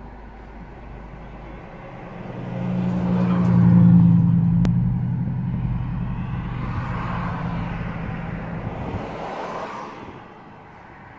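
A motor vehicle drives past close by: engine hum and road noise swell over a couple of seconds, peak, then fade away over the next several seconds.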